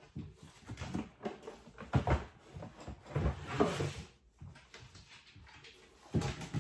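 A desk drawer is pulled open and things are rummaged through inside it, giving a run of irregular knocks, clatters and rustles.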